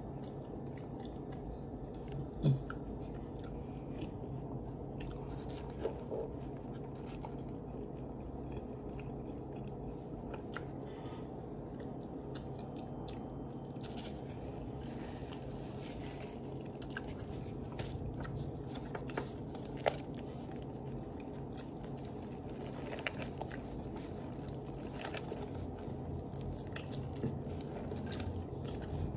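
Close-miked mouth sounds of a person biting and chewing a toasted chicken sandwich, with scattered short clicks and smacks, the sharpest about two and a half seconds in and again near six and twenty seconds. A steady low hum runs underneath.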